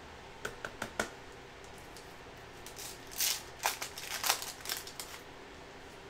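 Basketball trading cards being handled: a few light clicks, then a run of short rustling, sliding sounds as a stack of cards is picked up and riffled through, between about three and five seconds in.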